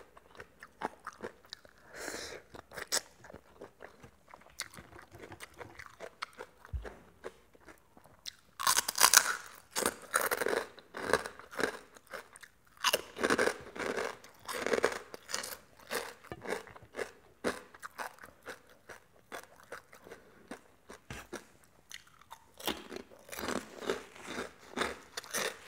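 A person chewing crunchy food from a meal of papaya salad, pork cracklings and raw vegetables, with many sharp crunches coming in louder bursts about a third of the way in, around the middle, and near the end.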